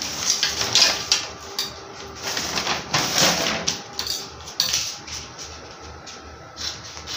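Brown pattern paper rustling and crinkling as it is moved and smoothed over a glass tabletop, in irregular swishes, the loudest about a second in and about three seconds in, with a few light knocks.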